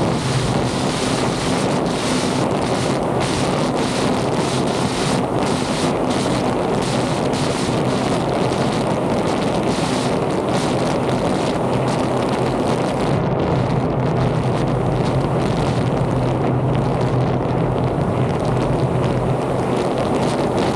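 Yamaha jet ski under way at a steady speed: the engine's low drone holds an even pitch, heavily buffeted by wind on the microphone, with water rushing along the hull.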